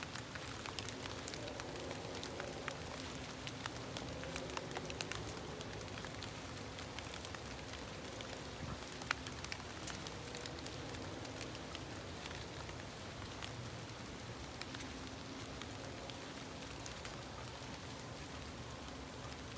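Steady rain falling on trees and leaf litter, with many scattered drops ticking individually.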